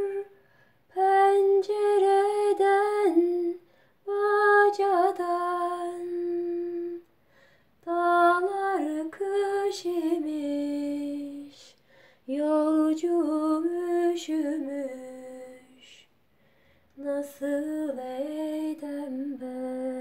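A woman singing a Turkish folk song (türkü) solo and unaccompanied, in slow, long-held phrases with wavering ornaments. There are about five phrases, with brief silent breaths between them.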